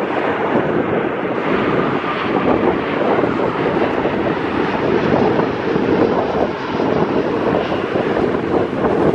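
Airbus A340-300's four CFM56 turbofan engines on final approach, a loud steady jet rumble as the airliner passes low overhead, with wind buffeting the microphone.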